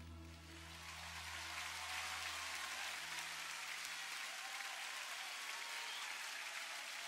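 A congregation applauding, the dense clapping filling the room, while the sustained low notes of the preceding music die away over the first few seconds.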